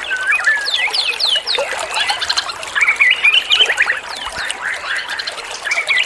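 Small songbirds singing fast, varied phrases of quick downward-sweeping whistles and chirps, one burst following another.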